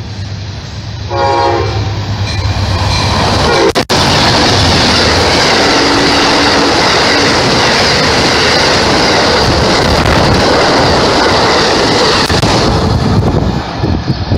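Amtrak passenger train sounding its horn in a blast about a second in, then passing at speed close by: a loud, steady rush of wheel and rail noise for about ten seconds that eases off near the end.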